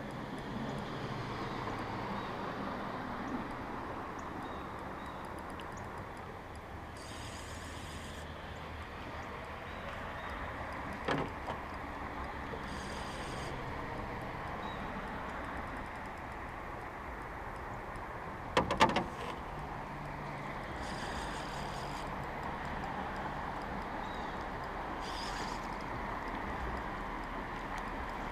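An electric fishing reel whirring in short bursts every few seconds over a steady background hiss, with two sharp knocks about eleven and nineteen seconds in.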